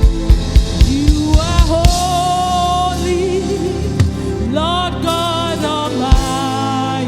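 Live gospel worship music: a band plays sustained chords under a singer's wordless, melismatic vocal runs. A run of quick, regular drum hits opens it, with one more loud hit near the end.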